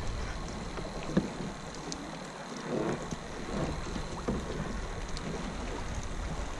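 Water lapping around a kayak while wind buffets the microphone, with a few faint small knocks.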